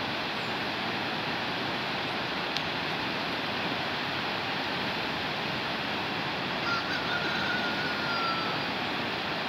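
River water rushing steadily over rapids. About seven seconds in, a faint high drawn-out whistle-like tone falls slightly in pitch for about a second and a half.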